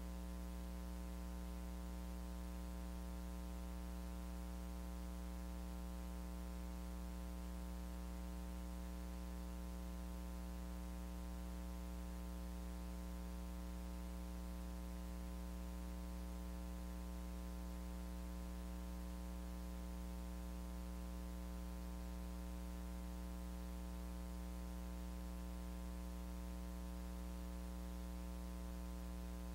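Steady electrical mains hum with a buzzy edge over a constant hiss, unchanging throughout; no voices or other sounds come through.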